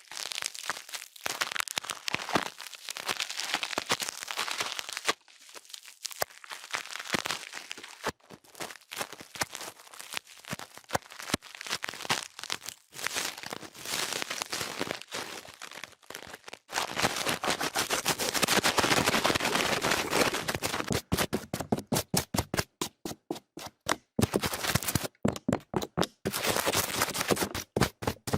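Close-miked ASMR trigger sounds: dense crackling and crinkling, like plastic or packaging being handled right at the microphone. Near the end it turns choppy, with rapid stop-start crackles.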